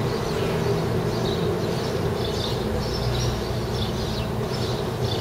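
Outdoor urban background: a steady low hum with small birds chirping here and there.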